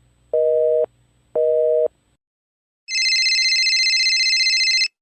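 Telephone busy signal: two short beeps of a low two-note tone about a second apart, then, after a pause, a different shrill electronic tone held for about two seconds.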